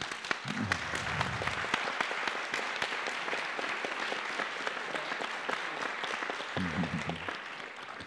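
Audience applauding: steady clapping from many hands that tapers off near the end.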